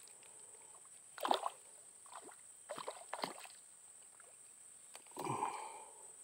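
A few short splashes and sloshes in shallow ditch water, four brief bursts spread over the seconds, as the bait and line are worked in the water.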